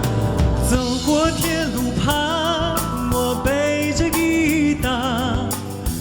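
Music: a Mandarin folk-pop song between sung lines, with a held melody line wavering in vibrato over the band backing.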